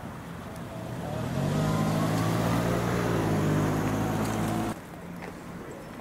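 A motor vehicle's engine running close by, rising in pitch about a second in and then holding steady, cut off abruptly near the end.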